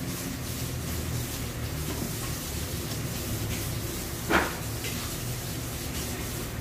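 Beef boiling in a covered pan on a gas stove: a steady low hum under a faint hiss. A single short, sharp pop or spit comes a little over four seconds in, louder than the rest.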